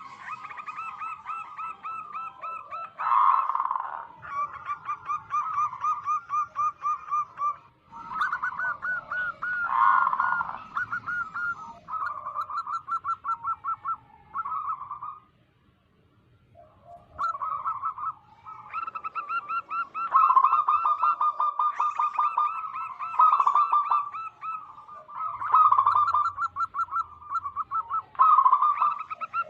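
Wild zebra dove (perkutut) song: fast runs of short, pulsing coo notes repeated almost without pause, with a break of about two seconds around the middle.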